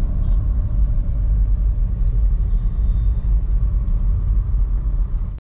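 Steady low rumble of engine and road noise heard inside a moving car's cabin, which cuts off suddenly near the end.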